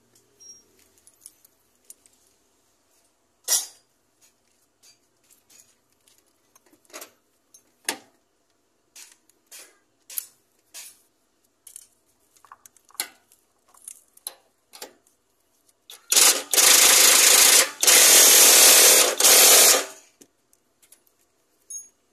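Scattered light metal clicks and clinks of hand tools against the gearbox, then a pneumatic wrench runs in two loud bursts, about four seconds in all, near the end, running a bolt down on the gearbox housing.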